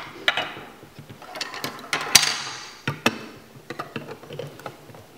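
Plastic LEGO Duplo bricks clicking and clacking as they are handled and set down on a tabletop, a scattering of separate sharp clicks with the loudest about two seconds in.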